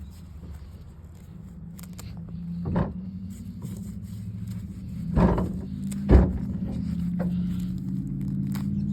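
An engine running steadily and slowly growing louder, with three sharp thumps about three, five and six seconds in.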